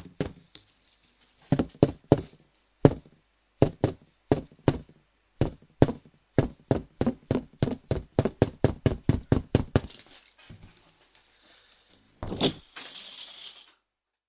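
Rubber balloon squeaking as it is rubbed: a run of short squeaks, quickening to about three a second, then fewer. Near the end comes a louder, longer squeak that trails off into a hissy rub.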